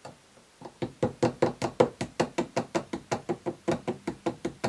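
Plastic hammer tapping rapidly, several light blows a second, driving tight plastic standoffs down onto the metal binding posts of a shotshell caddy. Each tap rings briefly. The tapping starts about half a second in.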